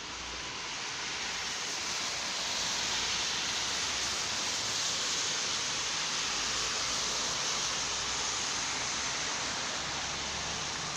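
A steady rushing hiss that swells a couple of seconds in and eases off slightly near the end.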